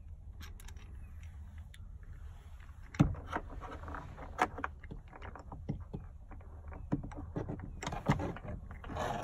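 Irregular clicks, taps and knocks of a rear grab handle and its bolt hardware being handled and fitted by hand against a Jeep Wrangler JK's overhead sound bar, with one sharp knock about three seconds in.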